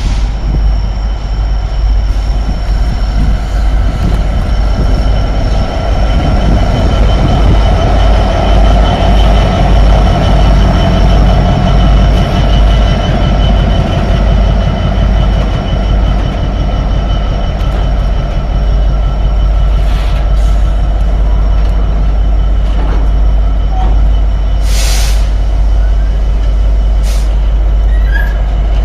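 Freightliner Class 66 diesel locomotive passing close with a container train. Its engine and heavy rumble are loudest as it goes by, then the container wagons' wheels roll past on the rails. A steady high whine runs underneath, and a brief hiss comes about 25 seconds in.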